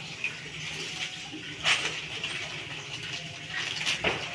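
Light clinks of small metal dish-mount parts, nuts and bolts being handled, with two short sharp clicks, one about a second and a half in and one near the end.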